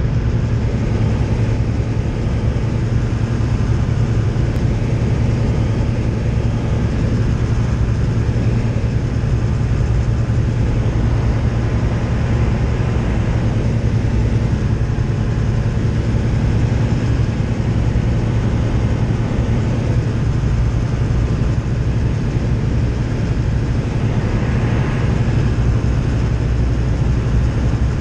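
Single-engine Tecnam light aircraft's piston engine and propeller running steadily, heard inside the cockpit as an even low hum with air noise over it.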